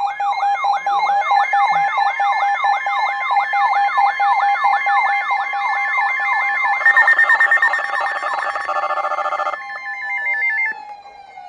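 Several phones sounding Wireless Emergency Alert tones at once for a snow squall warning. The tones overlap: repeated falling chirps about three a second, a warbling high tone and steady beeps. About seven seconds in, a burst of rapid pulsed beeping joins them, and most of the tones cut off around ten to eleven seconds in.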